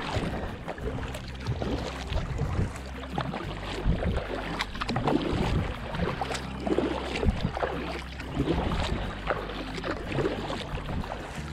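Kayak paddling: a double-bladed paddle dipping and pulling through lake water on alternating sides. There are irregular splashes and drips, with water swishing along the hull.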